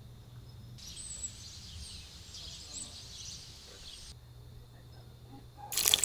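Outdoor ambience with a few faint bird chirps over a high hiss from about a second in until about four seconds. Near the end, loud sizzling starts as food goes into hot frying oil.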